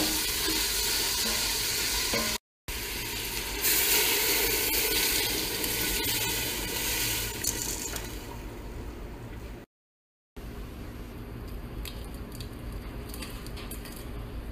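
Grated carrot and green pepper frying in a stainless steel pot, stirred with a wooden spoon: a steady loud sizzle that dies away about eight seconds in. It is broken by two abrupt cuts to silence, and after the second cut there is a quieter hiss with a few light clicks.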